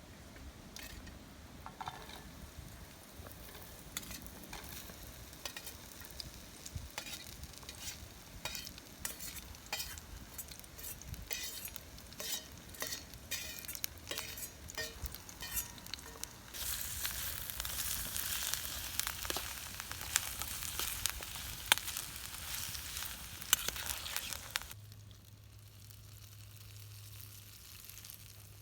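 Food frying in a pan, with many sharp clicks of stirring or spattering. About two-thirds of the way through, the sizzle turns loud and steady, then drops away suddenly near the end.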